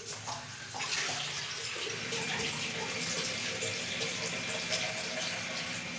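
Water running steadily, settling in about a second in, as a jug is filled for the cooking pot.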